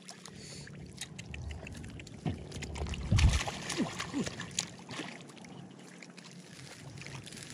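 Hands splashing and churning in shallow muddy water while grabbing fish, in irregular sloshes and splashes. The loudest splashes come about three seconds in.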